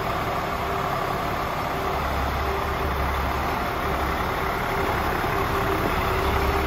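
DAF CF400 tractor unit's Paccar 400 bhp Euro 6 diesel engine idling steadily.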